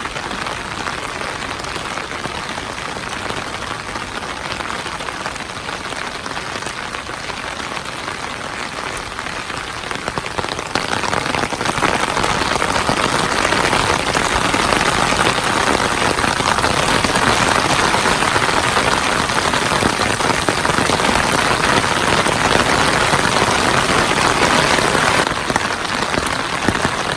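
Heavy rain pouring down steadily as an even hiss, getting louder about ten seconds in and a little quieter near the end.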